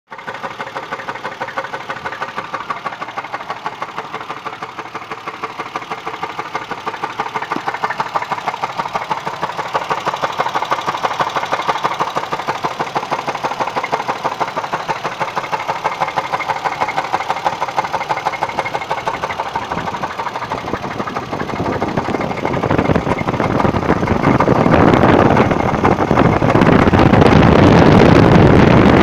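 Engine running with a rapid, regular knock. It grows louder over the last several seconds. The cause of the knock is unknown to the owner.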